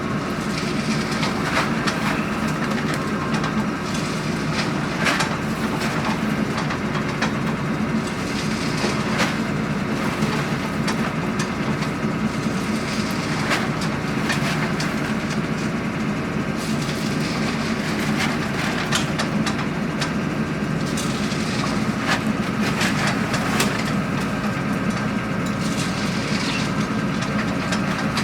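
Borehole drilling rig engine running steadily, with scattered short knocks over it as the drill bits and rods are pulled out.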